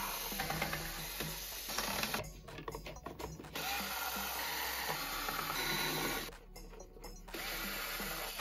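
Ryobi HP54L 4V cordless screwdriver running in three runs of a few seconds each, with short pauses between, backing screws out of a speaker's motherboard and power board.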